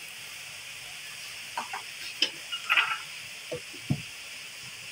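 Potato-and-eggplant curry sizzling in a steel pot, with a steady hiss. About a second and a half in, a few sharp clinks and knocks start as a glass lid is handled and set onto the pot.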